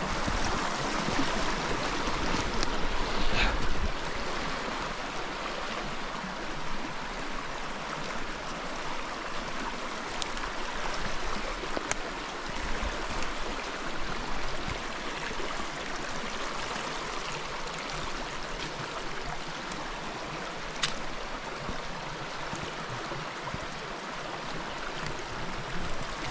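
Shallow, rocky creek running over stones, a steady rushing of water, a little louder in the first few seconds. A few sharp clicks stand out against it.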